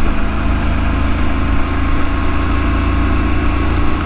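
Motorcycle engine running steadily at cruising speed, heard from the rider's seat, with a constant low rumble beneath it.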